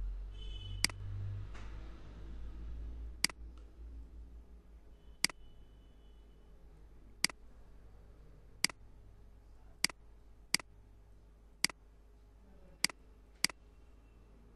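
Computer mouse button clicking: about ten sharp single clicks at uneven intervals, over a low steady hum.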